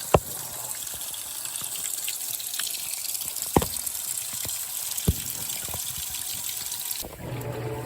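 Whirlpool WTW4815EW1 top-load washer filling its tub: a steady hiss of water spraying in, with a few sharp drips or clicks. About seven seconds in the water shuts off and a low hum takes over as the machine moves to agitation.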